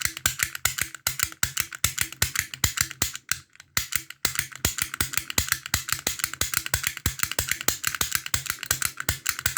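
Lockpick gun snapping rapidly against the pins of a Ruko lock cylinder, about seven sharp clicks a second, with a short break about three and a half seconds in.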